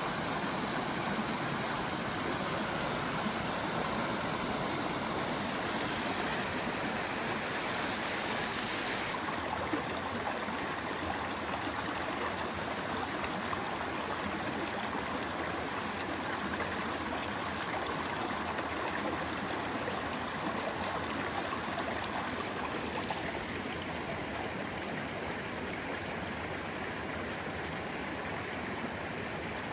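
Small forest creek running over mossy rocks and little cascades: a steady rush of water, its tone shifting about nine seconds in and again near twenty-three seconds as the flow changes.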